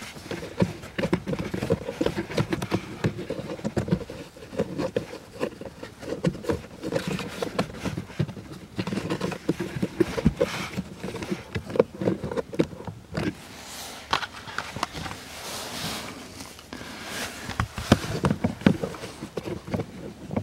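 Hands working the plastic latches of a cabin-filter cover under a car's glovebox: irregular clicks, knocks and scrapes of plastic. Crinkly plastic sheeting rustles, most plainly about three quarters of the way through.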